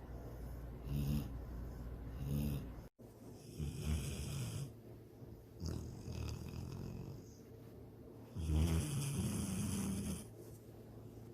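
Dog snoring in its sleep. First come evenly paced snores a little over a second apart, then longer, uneven snoring breaths, the loudest and longest about three-quarters of the way through.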